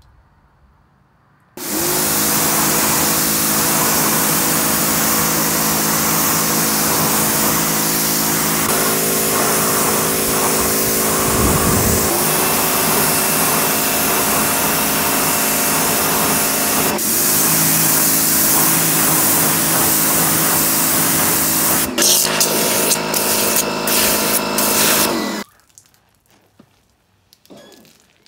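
Pressure washer running, its motor humming under the hiss of the water jet as it rinses foam off a tyre and wheel cover. It starts abruptly a second or two in, its pitch dips briefly three times, and it cuts off suddenly a few seconds before the end.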